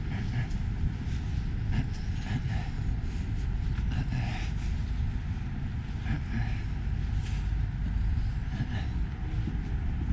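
Outdoor street ambience: a steady low rumble with scattered faint ticks and clicks at irregular moments.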